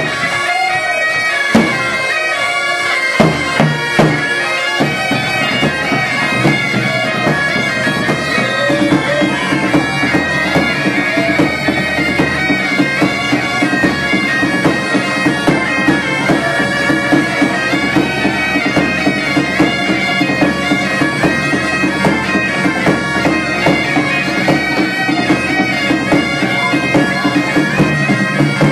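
Portuguese bagpipes (gaitas de foles) playing a pasodoble tune together over a steady drone, with a large bass drum beating time.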